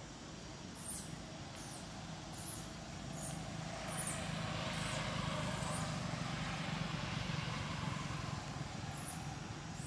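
A motor vehicle passing: its engine noise grows over a few seconds, holds, then fades. Short, high chirps repeat about every 0.7 seconds throughout.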